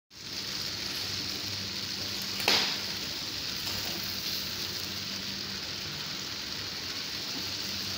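Food frying in hot oil, a steady sizzling hiss, with a single sharp knock about two and a half seconds in.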